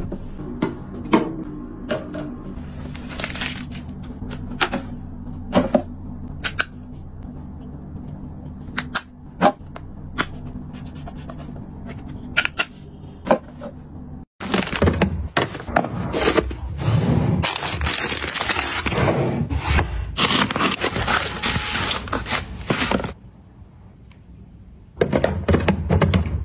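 Plastic cosmetic bottles and containers handled and dropped: scattered light clicks and taps over a low hum, then, after a sudden cut about halfway, several seconds of dense crackling rustle that stops a few seconds before the end, followed by more handling knocks.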